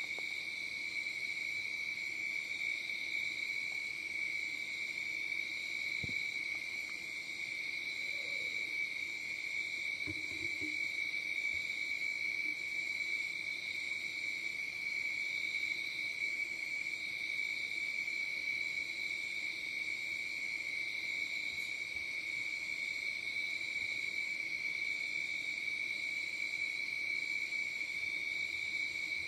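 Steady, high-pitched chirring of crickets or similar night insects, holding one pitch throughout. A few faint clicks come partway through.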